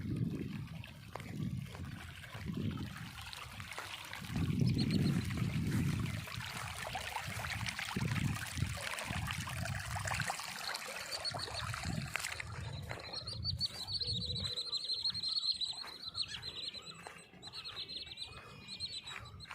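Birds calling outdoors, over low rumbling on the microphone in the first two-thirds. From about two-thirds in, a steady high-pitched tone and curving whistled calls stand out.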